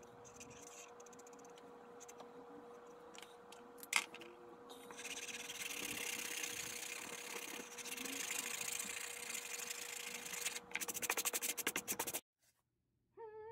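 Felt-tip marker strokes scratching on paper, with a sharp click about four seconds in. Then a hand rubs over the paper, erasing the pencil guidelines and brushing the sheet off, ending in quick rapid strokes before the sound cuts off abruptly. A faint steady hum runs underneath.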